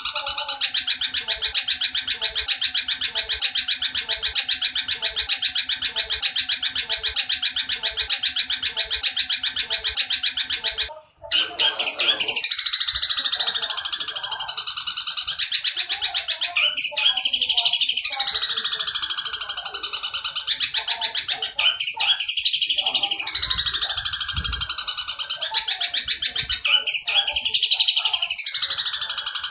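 Oriental dollarbird's harsh, rapid chattering call, a fast unbroken run of rasping notes. After a brief break about 11 seconds in, it comes in repeated bursts every two seconds or so, each sweeping down in pitch.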